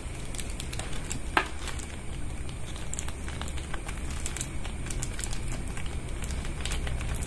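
Thin plastic food bag crinkling and crackling as it is handled and worked open by hand, in many small irregular clicks.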